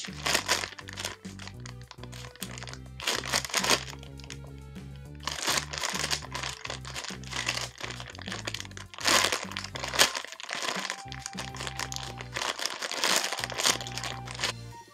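Plastic packaging crinkling in repeated short bursts as an iBloom strawberry squishy is squeezed inside its sealed bag, over steady background music.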